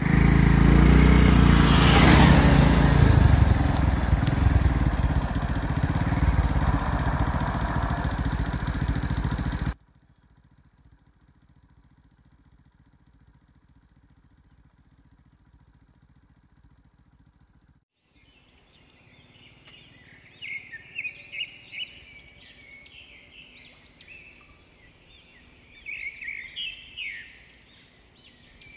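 For about the first ten seconds, a loud, dense rushing noise with a strong low rumble, which cuts off abruptly. After a quiet stretch, small birds chirp in quick bursts through the last third.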